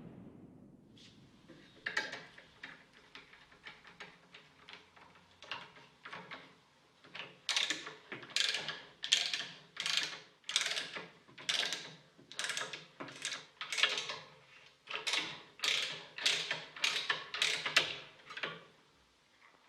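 A hand-operated tool's mechanism clicking and ratcheting in repeated short strokes, about one and a half a second. It starts faintly and grows louder about seven seconds in.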